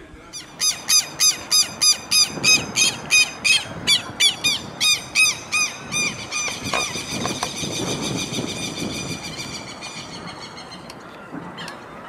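Southern lapwing giving loud, harsh alarm calls in an even series of about three a second. About halfway through the calls become a faster, quieter chatter that fades away.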